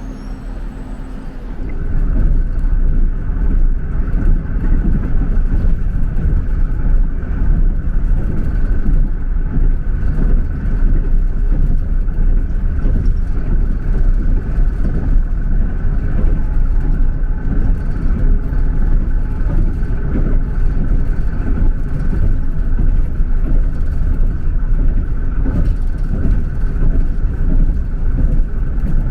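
Steady vehicle running noise: a loud low rumble with a faint constant whine, coming in abruptly about a second and a half in.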